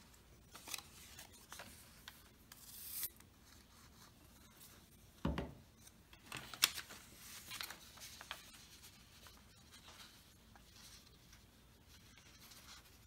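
Paper parts being handled, folded and rubbed together: faint scattered rustling and rubbing, with a dull knock about five seconds in and a small click just after.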